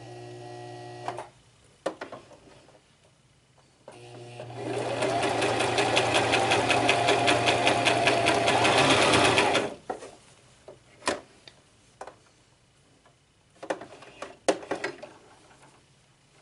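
Brother LX3817 electric sewing machine stitching a test seam through fabric: a short slow run stops about a second in, then from about four seconds in it runs faster for about six seconds with rapid, even needle strokes before stopping. A few sharp clicks follow near the end.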